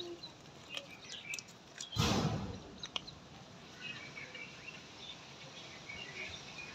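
Faint, scattered bird chirps in the background, with a brief loud rush of noise about two seconds in.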